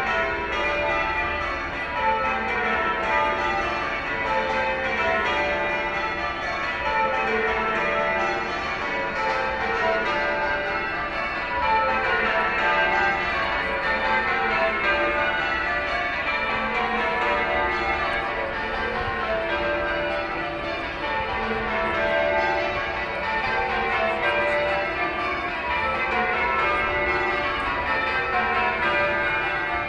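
Church bells of St Margaret's, Westminster, change ringing: the bells strike one after another in steady rounds, each round stepping down in pitch, without a break.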